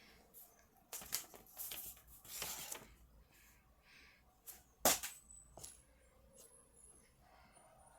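Sheet of paper being handled and creased: a run of short rustles and crinkles, with one sharp tap about five seconds in.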